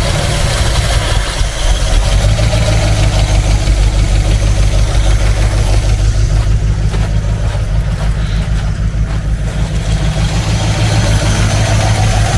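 GAZ-66's V8 petrol engine idling rough and misfiring, with a pulsing beat, running on only some of its eight cylinders. The owner puts the misfire down to spark plugs fouled from running flooded.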